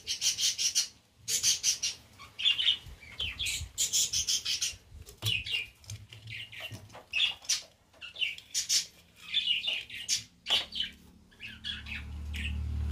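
Small birds chirping over and over in short, quick trills. A low, steady hum comes in near the end.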